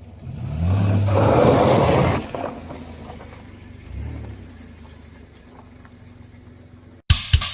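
A car engine revs up loudly for about two seconds, then dies back to a low hum, with a smaller rev near 4 s. About seven seconds in, drum-kit music starts abruptly.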